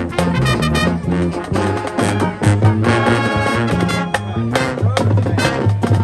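High school marching band playing: brass over a low bass line that steps from note to note, with frequent sharp drum hits.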